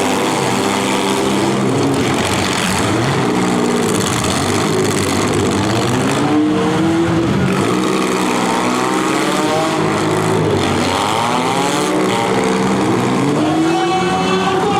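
Several demolition derby cars' engines revving hard at once, their pitches rising and falling over one another in a loud, continuous din.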